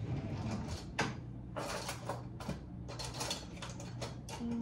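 Rummaging through a kitchen drawer for a potato peeler: a string of irregular clattering knocks and rattles of utensils.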